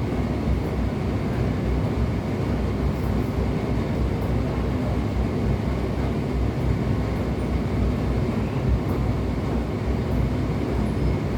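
Indesit condenser tumble dryer running with its drum turning: a steady, heavy low rumble. The owner blames this noise on a worn drum that needs replacing.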